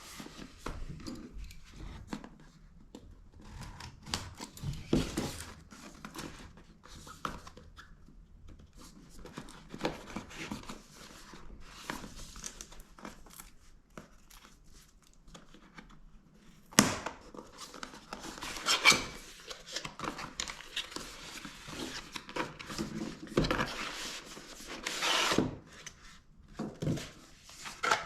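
Packaging being opened and handled by hand: intermittent crinkling, rustling and tearing, with a sharp snap a little past halfway and louder bursts of rustling in the second half.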